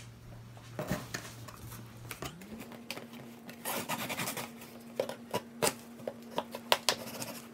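Steak knife slicing through the packing tape and cardboard of a shipping box: irregular scratching and scraping with sharp clicks and snaps of blade, tape and cardboard.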